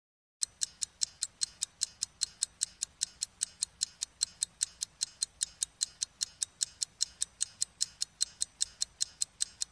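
Ticking clock sound effect: an even run of sharp ticks, about five a second, starting about half a second in.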